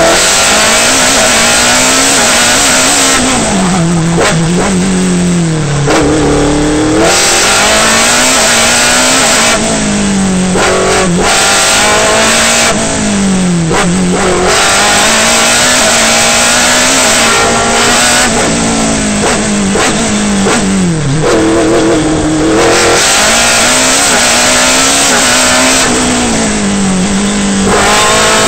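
Osella PA9 sports-prototype race car engine heard from the open cockpit, loud throughout, revving up and down again and again as the car accelerates and brakes between tight corners. The pitch climbs, then drops abruptly with each gear change or lift, with dips and recoveries every few seconds.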